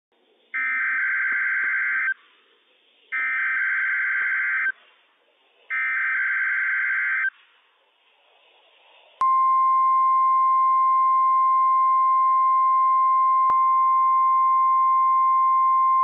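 NOAA Weather Radio Required Weekly Test signal. It opens with three identical bursts of buzzy, warbling digital data tones from the SAME alert header, each about a second and a half long and two and a half seconds apart. About nine seconds in, the 1050 Hz warning alarm tone starts abruptly and holds as one steady, loud high tone, with a faint click partway through.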